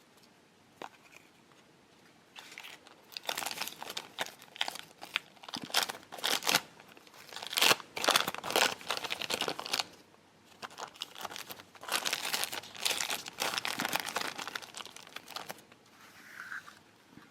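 A plastic packet crinkling as it is handled, in irregular bursts of crackling that go on and off for most of the stretch, with a short lull midway.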